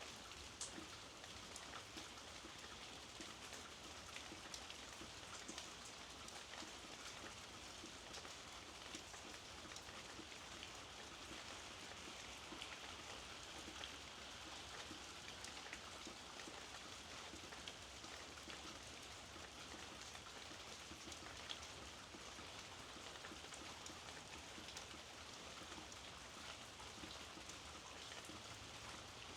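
Steady rain falling, with many distinct drops ticking on a nearby surface over an even hiss.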